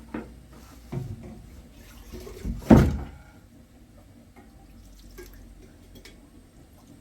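A few knocks and clunks of things being handled, the loudest a heavy thud about three seconds in.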